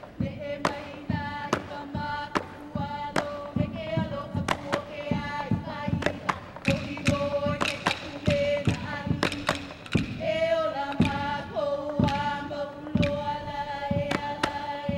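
Hawaiian hula kahiko chant, the chanter holding long notes, over regular sharp percussion strikes about twice a second.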